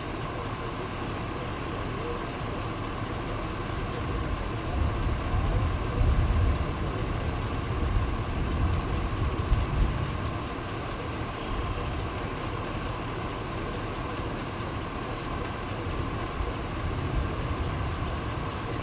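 Steady wind noise with irregular gusts buffeting the microphone, strongest between about four and ten seconds in.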